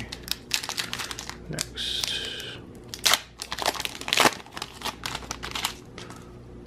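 Foil wrapper of a Pokémon TCG booster pack crinkling and tearing as it is ripped open by hand, a dense run of sharp crackles that dies away about six seconds in.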